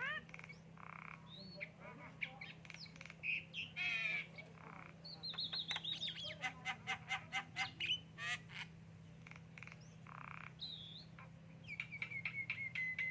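Javan myna singing a varied run of whistles that slide up and down, harsh chattering notes, and a fast series of sharp clicks in the middle, over a low steady hum.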